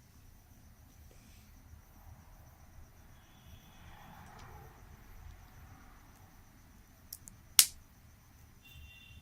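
Quiet handling noise of a phone box and its packaging, with two small clicks and then one sharp, loud click about seven and a half seconds in.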